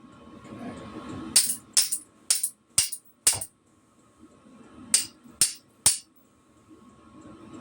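Hammer striking metal in sharp taps: five about half a second apart, then after a pause three more.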